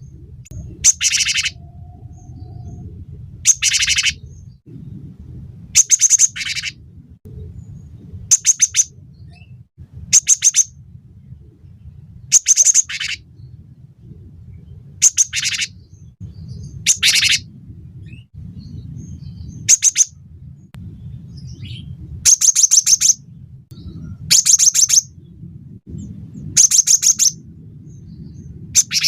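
Cinereous tit (gelatik batu) singing: short, high phrases of rapid sharp notes, repeated about every two seconds, over a steady low background hum.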